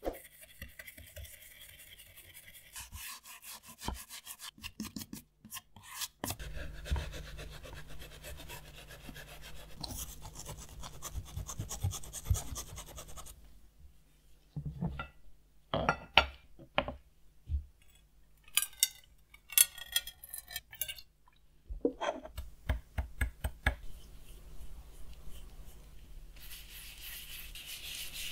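Hand rubbing and scraping on the cardboard and leather of an old radio case, in several short clips that cut in and out. The first half is steady rubbing. From about halfway there are runs of quick, sharper strokes and scrapes.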